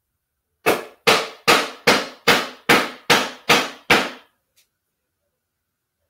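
A mallet striking wooden beehive parts nine times in a steady run, about two and a half blows a second, knocking tight-fitting joints together.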